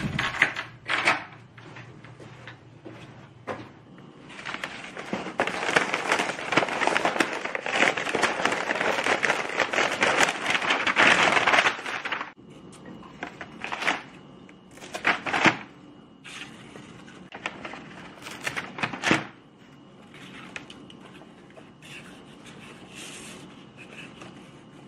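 Brown kraft wrapping paper crinkling and rustling as it is pulled open from around a bunch of monstera leaves, dense and loud for about eight seconds in the first half. A few door clunks come at the start, and scattered knocks and paper rustles follow as the leaves are handled.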